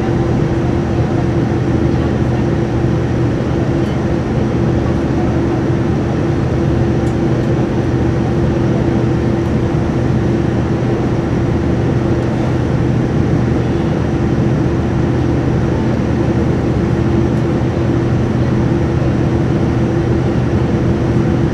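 Cabin noise inside a Boeing 787-9 descending toward landing: the steady drone of its Rolls-Royce Trent 1000 engines and the rush of airflow past the fuselage, with a constant low hum and a steady mid-pitched tone running through it.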